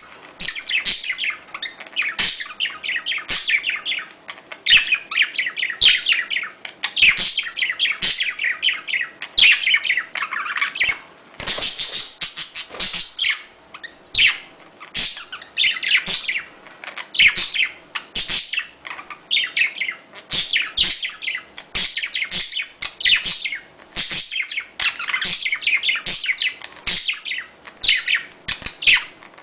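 Budgerigars chattering and warbling in a continuous stream of quick chirps and trills, the busy courtship chatter used to encourage budgies to breed.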